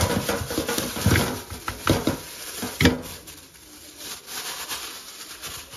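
Raw mutton pieces tipped from a plastic bag into a steel bowl in a metal sink: the bag crinkles and the meat lands with a few knocks in the first three seconds, then a tap runs with a softer, steady hiss.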